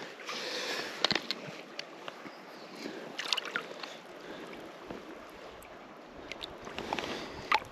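River water splashing and sloshing close by, with a few sharper splashes, as a landed brown trout is handled in the water.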